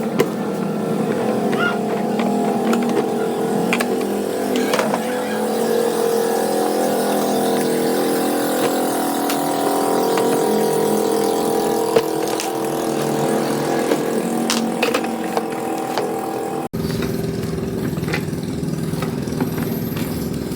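Steady drone of passing street traffic, engines running, with a few light clicks over it. It cuts out for a split second about three-quarters of the way through.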